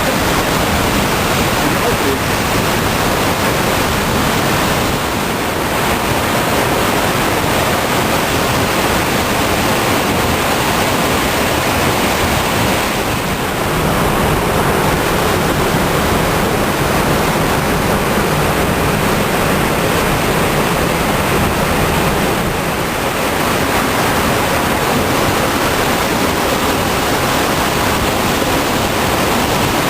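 The Salurn waterfall rushing: a loud, steady roar of falling water that swells and eases only slightly.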